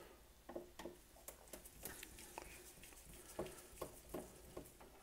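Faint, irregular light clicks and taps of small screws and a washer being handled and taken out of a vintage tape recorder's cover.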